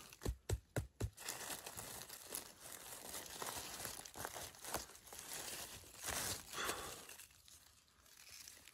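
Dry forest-floor litter crackling and rustling as it is disturbed, with four quick sharp snaps in the first second, fading near the end.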